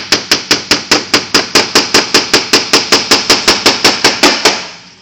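A small hammer tapping a scoop's retaining pin into place: a quick, even run of light taps, about five a second, that stops shortly before the end.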